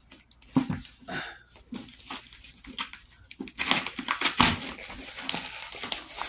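Craft knife slitting packing tape on a paper-wrapped box, then the tape and paper wrapping being torn and crinkled as it is pulled back, the crackling getting louder and denser in the second half.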